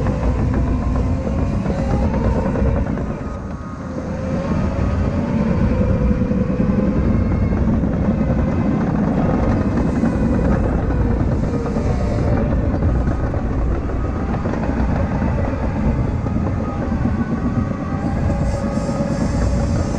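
Caterpillar 953K track loader running and working: a steady, heavy diesel-and-track din with a wavering whine over it, easing briefly about three and a half seconds in.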